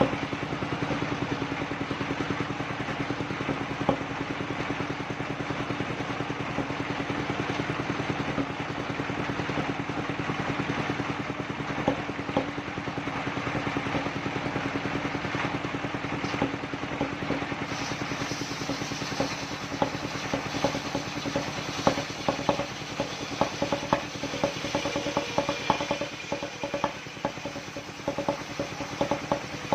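The engine of a mobile circular sawmill running steadily, with sharp clattering knocks that become more frequent in the second half.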